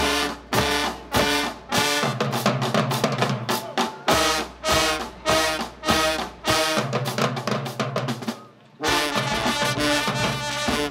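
School marching band playing brass chords over snare and bass drums, with heavy accented hits about twice a second. It cuts off briefly about eight and a half seconds in, then comes back in with a busier passage.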